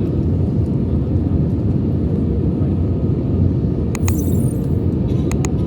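Steady low vehicle rumble, with a few short clicks about four seconds in and again near the end.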